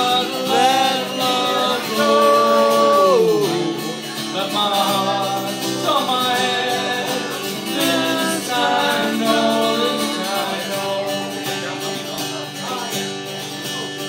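Live acoustic song: a man singing long, held notes into a microphone over an acoustic guitar, one note sliding down about three seconds in. The voice drops out about ten seconds in and the guitar plays on alone.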